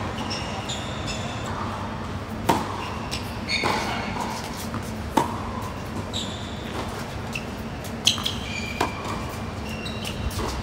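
Tennis rally on a hard court: sharp pops of racket strikes and ball bounces about every second or so, with short high shoe squeaks on the court surface in between.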